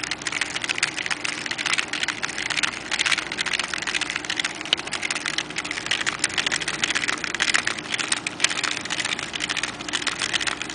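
Hand-cranked Lego single-cylinder engine model running: a fast, continuous clicking and clattering of plastic gears, crank and piston.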